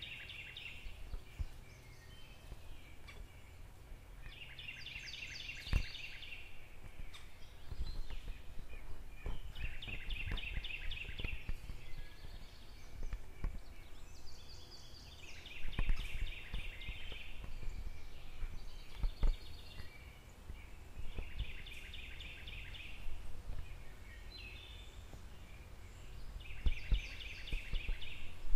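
A songbird repeating a short phrase of rapid notes about every five or six seconds, six times in all. Underneath runs a low rumble with scattered knocks and thumps.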